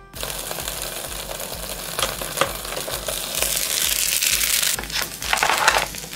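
Sandwich cooking in a Russell Hobbs contact grill, sizzling and crackling steadily; the sizzle grows louder a little past halfway, when the lid is up. A few louder scrapes come near the end.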